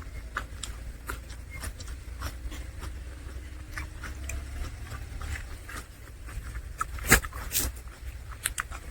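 Close-miked eating sounds: irregular wet mouth clicks and smacks of chewing a curry-and-rice meal over a low steady rumble, with a sharper knock about seven seconds in.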